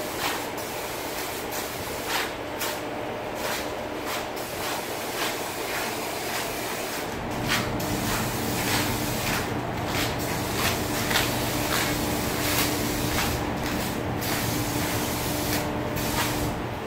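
Paint being sprayed: a steady hiss that stops briefly several times as the trigger is let off, with a low steady hum joining about seven seconds in.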